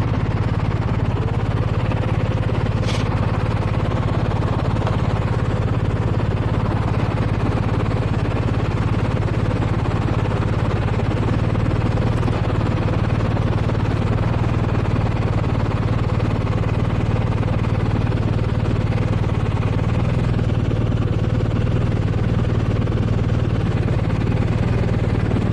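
Motorcycle riding at a steady speed: a constant low engine hum mixed with wind and road noise, with no change in pitch or level.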